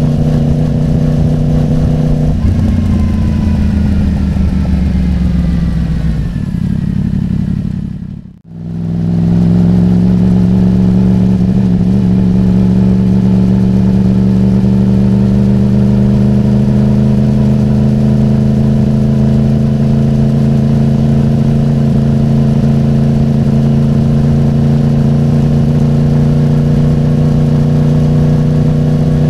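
Yamaha YZF-R1's crossplane inline-four running through a MIVV carbon exhaust while riding. The revs fall off about two seconds in and the sound drops out briefly around eight seconds in. It then returns at a steady cruise, the revs climbing slowly.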